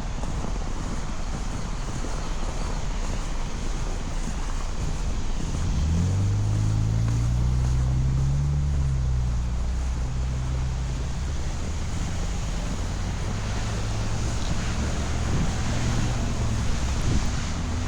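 Street traffic noise with wind on the microphone; about six seconds in, a vehicle engine's low hum comes in close, rises briefly in pitch, then settles and runs on.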